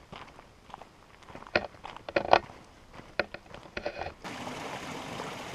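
Footsteps crunching on a dirt trail, a few of them louder than the rest. About four seconds in, the sound switches suddenly to the steady rush of a mountain creek.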